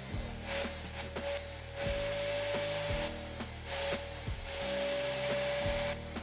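Angle grinder running steadily with a high whine while a drill bit is ground against its abrasive disc. The grinding hiss swells and eases as the bit is pressed on and moved. Background music plays under it.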